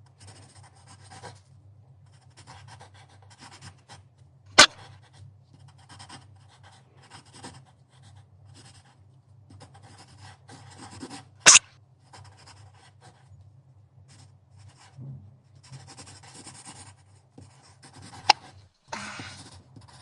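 Three sharp, sudden hiccups, evenly spaced about seven seconds apart, over faint rustling and a steady low hum.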